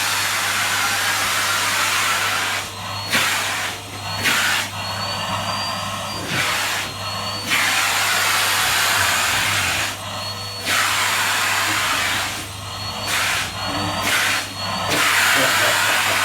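Vacuum cleaner running as it is worked over a Newfoundland puppy's coat. Its rushing hiss dips for a moment every second or two and comes back with a brief whistle.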